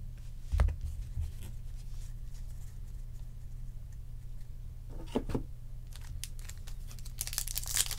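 Trading cards being handled on a table: a sharp knock about half a second in, a few light clicks of cards around the middle, then the crinkle of a foil card-pack wrapper building near the end. A low hum runs underneath.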